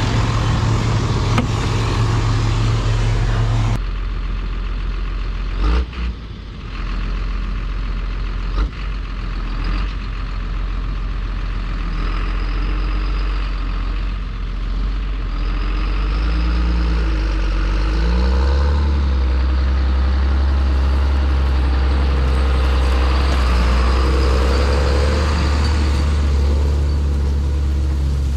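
Claas Tucano 440 combine harvester running. For the first four seconds it is heard with a loud rushing noise, then suddenly muffled to a low, steady engine drone, as from inside the cab. There are two short knocks, about six and nine seconds in, and the drone grows louder from about eighteen seconds in as the machine works through heavy wheat.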